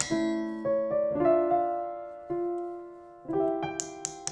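Background piano music: slow, held notes and chords struck one after another.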